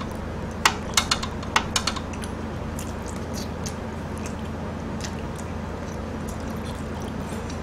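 Chopsticks and utensils clicking against dishes and food containers while eating: a cluster of sharp clicks in the first two seconds, then fainter scattered ticks, over a steady low hum.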